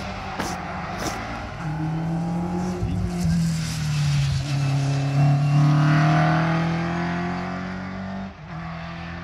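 A competition car's engine running hard as the car passes on a hillclimb course. It is loudest about halfway through, and its pitch steps down once about four seconds in.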